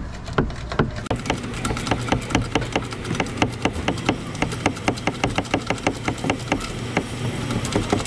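Ratchet with a 10 mm socket clicking rapidly and evenly, several clicks a second, as a ground-cable nut is slowly backed off its stud.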